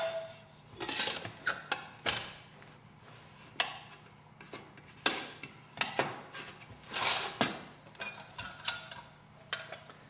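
Stainless steel mess-kit pot, lid and aluminium windscreen clinking and knocking together as the kit is nested and closed up. The knocks come irregularly, some ringing briefly.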